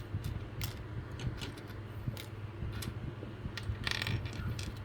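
Small plastic model-kit parts clicking and clattering as they are set down and sorted: scattered light taps, with a short burst of clatter about four seconds in, over a steady low hum.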